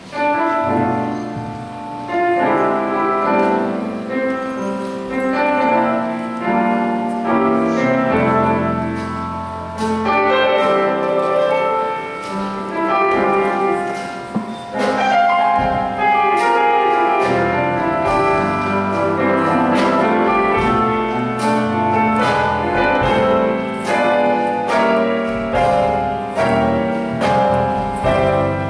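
Piano playing the instrumental introduction to a gospel song, with chords and a melody line and no voice yet.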